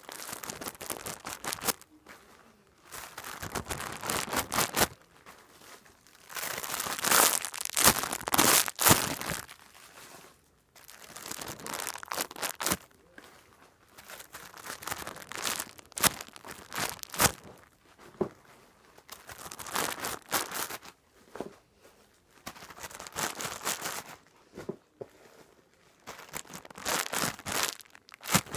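Plastic packaging crinkling in repeated bursts of a few seconds as squishy toys in their bags are handled and squeezed.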